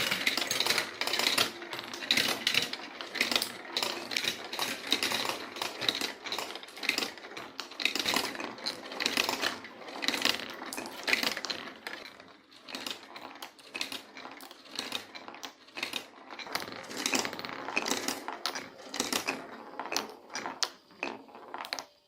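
Marbles rolling and clattering down a block marble run: a rapid, irregular stream of clicks and taps that thins out to scattered clicks over the last several seconds.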